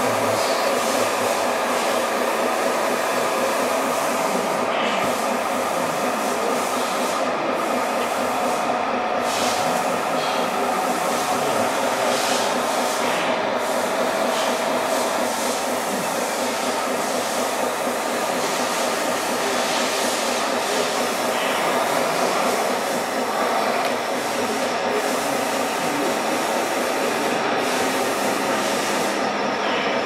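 Radio-controlled model tipper semi-truck running, giving a steady mechanical whir and hum with a few faint clicks.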